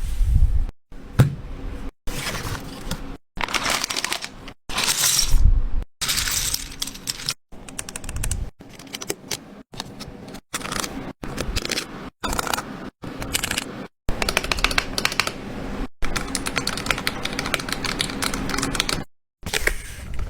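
Small plastic items and packaging being handled: dense clicking, tapping, crinkling and scraping in a run of short clips, each cut off abruptly by a brief silence.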